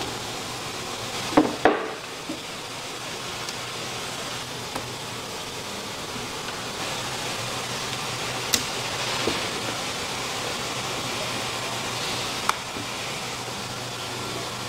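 A long fish knife knocking against a wooden cutting board as tuna loin is cut: two sharp knocks close together about a second and a half in, then a few more scattered later. Under them is a steady hum and hiss.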